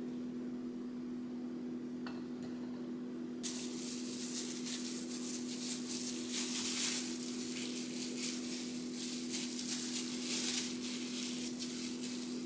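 Olive oil being worked into seasoned raw salmon pieces: wet rubbing and squishing noises start a few seconds in and carry on, over a steady low hum.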